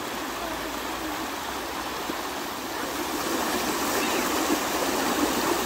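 Shallow creek rushing over stones in small white-water rapids: a steady rush of water that grows a little louder about halfway through.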